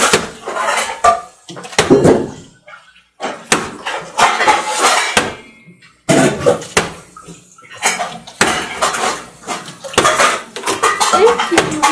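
Plastic water bottle being flipped again and again and landing on a glass tabletop: a run of sharp knocks and clatters, about one every half second to second, with plastic puzzle cubes being handled and set down on the glass in between.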